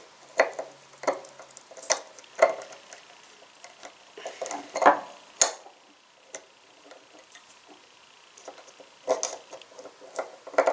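Small metal tool clicking and scraping against the parts of a vintage Craftsman 1/2-inch ratchet head while prying out a snap ring: irregular light ticks, with a sharper click about five seconds in.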